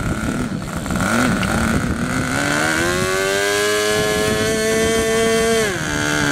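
R/C model boat's engine running on its stand out of the water: it revs up about two and a half seconds in, holds a steady higher speed for about three seconds, then drops back toward idle near the end.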